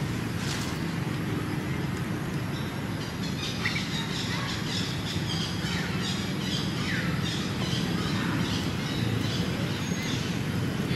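A steady low rumble with birds chirping over it: a few short falling chirps and a run of quick, high twittering through the middle.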